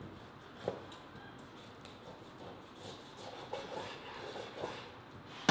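Knife cutting through raw veal ribs on a wooden cutting board: soft scraping and slicing sounds, with one sharp knock about two-thirds of a second in.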